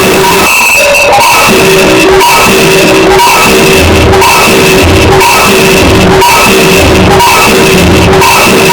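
Harsh noise music: a loud, dense wall of distorted noise with two steady droning tones, one low and one high, and a low thud about once a second through the second half.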